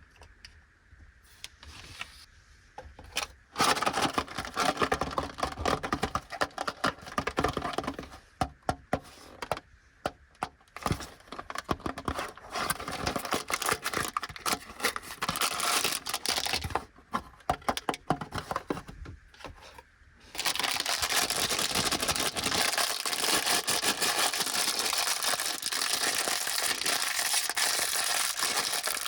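Plastic snack packaging being torn open and crinkled by hand, in irregular loud crackly bursts with short pauses, then a dense, continuous rustle for the last several seconds.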